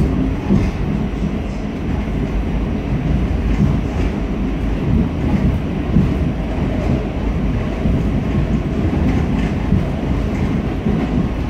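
R46 subway train running along the track, heard from inside the car: a steady low rumble with occasional clicks from the wheels over the rails.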